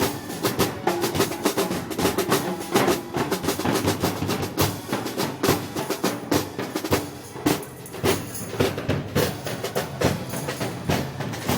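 Festival band music driven by drums: snare drums playing rolls and a busy beat, with bass drum and some held instrument notes underneath.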